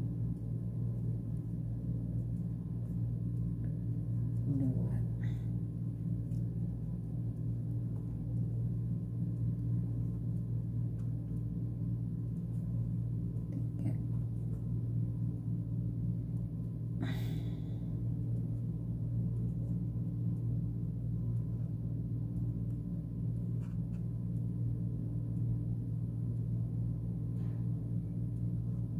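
A steady low hum made of several held tones, with a few faint clicks and one brief sharp sound about seventeen seconds in.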